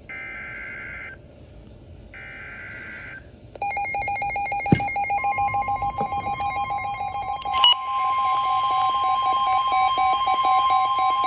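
NOAA Weather Radio Emergency Alert System signal. First come the last two of the buzzing digital SAME header bursts, about a second each, that announce a severe thunderstorm warning. Then, a little over three seconds in, a rapid pulsing beep starts, and about five seconds in the steady 1050 Hz weather-radio warning tone sounds over it.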